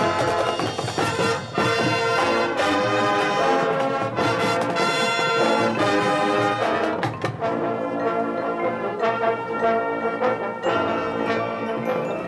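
High school marching band playing its field show, the brass section sounding loud held chords punctuated by a few sharp accented hits.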